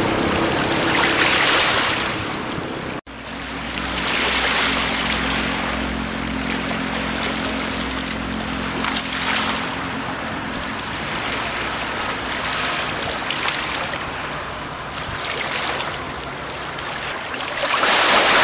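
Small sea waves washing against and draining through the rocks of a stone breakwater, swelling and fading every few seconds.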